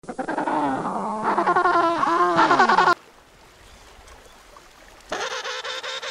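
King penguins trumpeting: a loud warbling call whose pitch swoops up and down, cut off suddenly about three seconds in. After a quieter stretch, a gentoo penguin starts a braying call with a fast, even pulse near the end.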